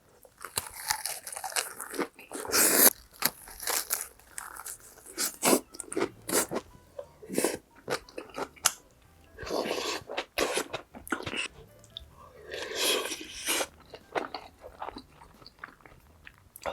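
Close-miked eating sounds: a person biting and chewing spicy cheese chicken stir-fry, with irregular wet crunching and sharp clicks.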